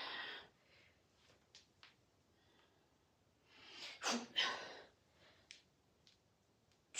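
A person's forceful breaths during a dumbbell lift: one trailing off at the start and a louder two-part breath about four seconds in, with a few faint clicks between.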